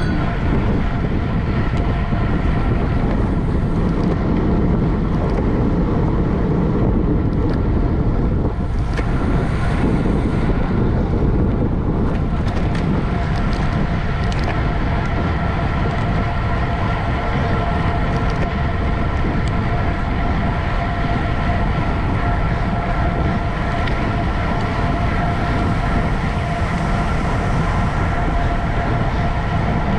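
Wind rushing over the microphone of a camera riding along on a racing bicycle, with a steady hum of tyres and drivetrain underneath.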